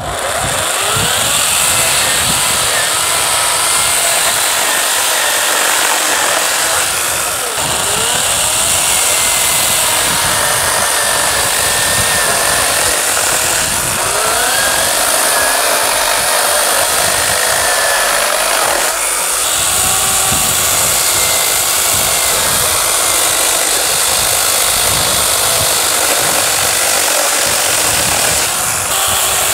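Ribimex PRBAT20/TRO battery chainsaw, powered by two 20 V packs, running continuously as its chain cuts through a branch about 15 cm thick. The motor's whine wavers up and down in pitch as it is loaded in the wood.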